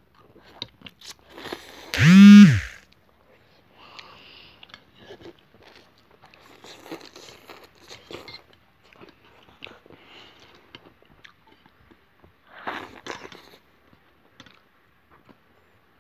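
Children slurping and chewing instant noodles in soup, with scattered small clicks throughout. The loudest sound is a short, loud vocal sound about two seconds in that rises and then falls in pitch.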